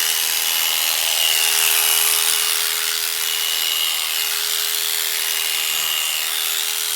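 Electric sheep-shearing machine running with a steady hum and high hiss, whining as it struggles to cut through the sheep's fleece.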